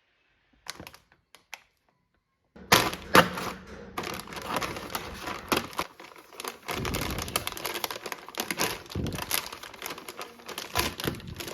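Dense clattering and knocking of hard objects, a few separate clicks followed by about nine seconds of rapid tapping and thunks.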